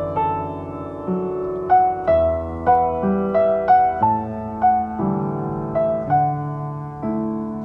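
Background music played on piano: a slow, gentle melody of single notes over held lower chords, a new note about every half second.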